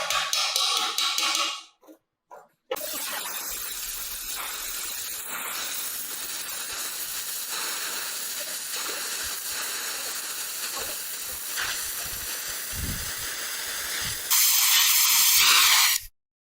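Steady spraying hiss, louder over the last couple of seconds before it cuts off suddenly, after a moment of music at the start.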